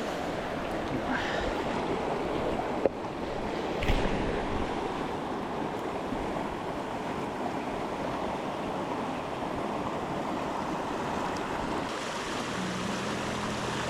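Rushing water of a fast mountain stream running steadily in high water, with a sharp click about three seconds in and a low thump a second later.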